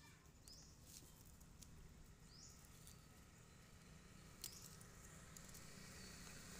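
Near silence: faint outdoor background with a few soft scattered ticks and two faint brief high chirps.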